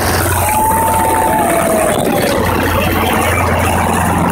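Small helicopter hovering low overhead as it comes in to land: a steady low rotor and engine hum under a broad rushing noise. A high whistling tone slides down in pitch about a second and a half in and fades out.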